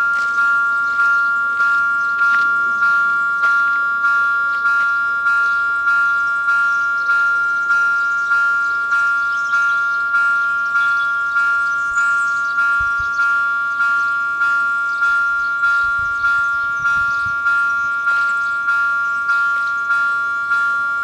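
Level-crossing warning bells ringing in a steady repeated rhythm, about one and a half strokes a second, each stroke ringing out and fading before the next. The ringing means the crossing is active and a train is approaching.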